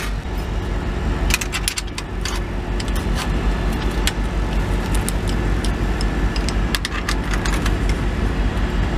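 Metal clinks and rattles of a steel exhaust band clamp being handled and turned around on the flex pipe, over a steady low hum.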